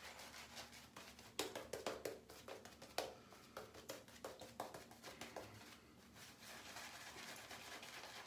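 Shaving brush working shave-soap lather over a stubbled face: a soft wet brushing, with a run of quicker, sharper strokes from about one and a half to five and a half seconds in.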